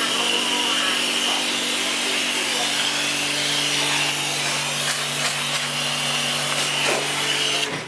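High-pressure washer pump running with a steady hum while its water jet hisses onto an air conditioner's indoor fan coil; both cut off suddenly near the end as the spray stops.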